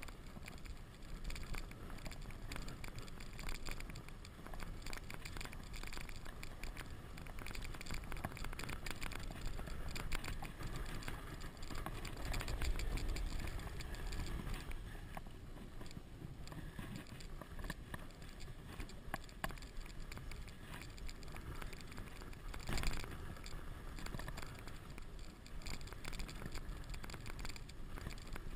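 Wooden sled's runners hissing and scraping over packed snow on a steady downhill run, with scattered knocks and rattles from the sled over bumps. A deeper rumble swells a little before halfway, and one louder knock comes about four-fifths in.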